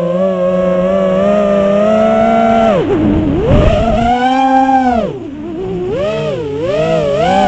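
Motors and propellers of a 6-inch FPV quadcopter (Emax ECO II 2207 1900KV motors, HQProp 6-inch three-blade props) whining as the throttle changes. The pitch holds steady for about two and a half seconds, drops sharply as the throttle is cut, surges back, then rises and falls several times near the end.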